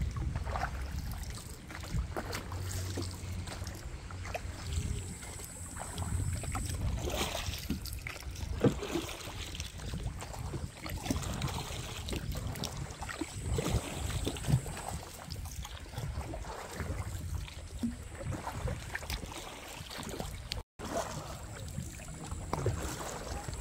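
Kayak paddling on a river: paddle strokes and small splashes and knocks against the hull, over a steady low wind rumble on the microphone.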